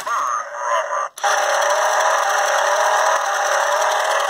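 A battery toy pickup truck's electronic engine-revving sound effect playing through its small replacement speaker. The sound is thin, with nothing in the low end. It cuts out suddenly about a second in, then starts again and runs steadily with repeated rising sweeps in pitch.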